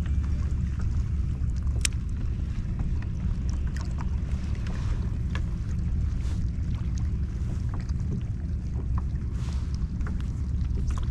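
Wind rumbling steadily on the microphone on a kayak on open water, with scattered light clicks and taps.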